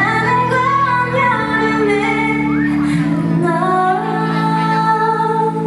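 Pop song played back for a dance: a woman singing a sliding melody over long held chords.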